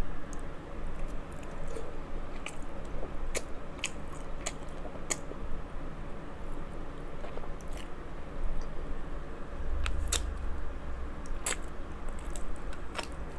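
Close-miked eating of king crab legs: chewing with a dozen or so sharp, separate clicks spread through it, over a steady low hum.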